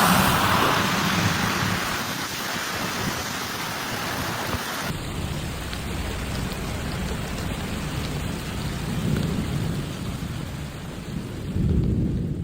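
Heavy rain falling, with a low rumble underneath that swells near the end. The sound changes abruptly about five seconds in, as at a cut between two recordings.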